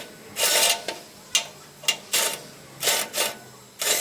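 A wrench working bolts on the steel frame of a concrete block machine: short metallic rasps and sharp clicks come in quick, irregular bursts, about half a dozen in all.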